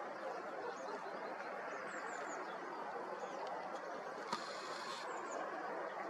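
Outdoor ambience: a steady low rushing background with faint, thin, high chirps of small birds scattered through. About four seconds in comes a click followed by a short high buzz.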